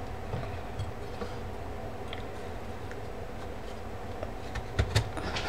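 Large kitchen knife cutting a peeled raw sweet potato on a wooden cutting board: a few light taps, then two sharp knocks of the blade reaching the board near the end, over a steady low hum.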